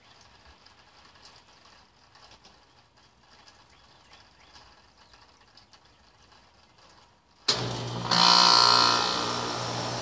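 3-ton 1996 Bryant heat pump outdoor unit starting up in heat mode: after about seven seconds of quiet it kicks on suddenly with a terrible noise from the compressor, loudest for about a second, then settles into a steady running hum. The owner does not take the startup noise for a fault.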